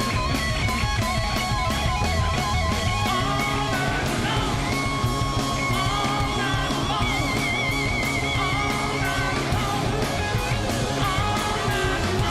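Live rock band playing an instrumental passage: a lead guitar holds sustained notes with wide vibrato over a steady drum beat and bass.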